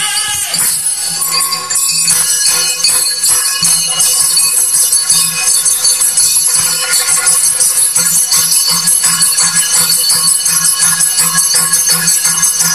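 Yakshagana stage music: fast, driving drumming with jingling bells, the dancers' ankle bells among them, over a steady drone. A sung line ends about half a second in.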